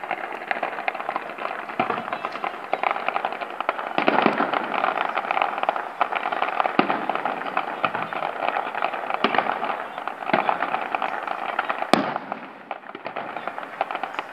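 Fireworks display: dense crackling with a sharp bang every second or two, the loudest about four seconds in and near the end.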